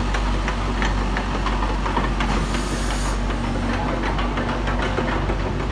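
Volvo EC55D mini excavator's diesel engine idling with a steady low hum, with scattered light knocks and a brief high hiss a little over two seconds in.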